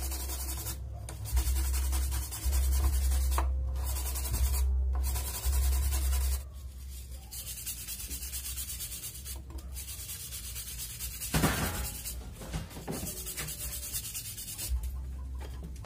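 Wire brush scrubbed back and forth over a dry coconut shell in quick strokes: a steady scratchy rasp with a few brief pauses, lighter in the second half.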